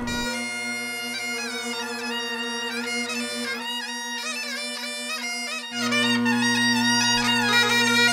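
Bagpipes playing a melody on the chanter, full of quick grace-note ornaments, over a steady drone. The deepest drone drops out about three and a half seconds in and comes back about two seconds later, louder.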